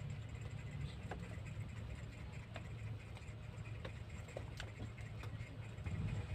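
Faint scattered clicks and light taps as a kitten shifts its weight on a crate of eggs, the eggshells knocking together, over a steady low hum.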